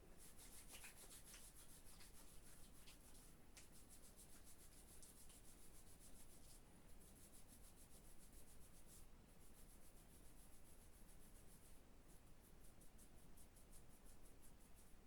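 Faint scratching of a pen writing on paper, in quick fine strokes with a few brief pauses.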